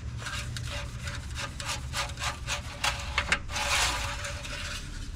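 Long, flexible engine oil dipstick drawn up out of its tube through a paper towel to check the oil level: a run of short scraping rubs, then about half a second of papery rustling a little past the middle.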